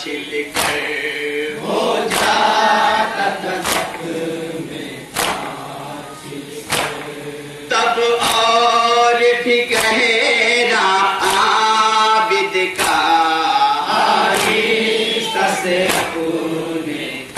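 A group of men chanting a nauha, the Shia lament for Muharram, in unison. Hands strike chests together in matam, a sharp beat about every one and a half seconds that keeps time with the chant.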